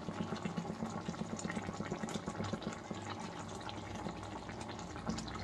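Thick dried-fish curry boiling in a pan, many small bubbles popping over a steady low hum.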